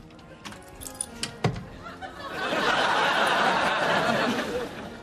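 Studio audience laughter that swells about two seconds in and holds to near the end, after a few sharp knocks.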